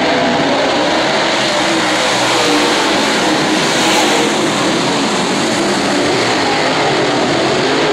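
A field of dirt late model race cars running their V8 engines hard around a dirt oval, a loud, continuous blend of many engines whose pitch wavers as they go through the turns.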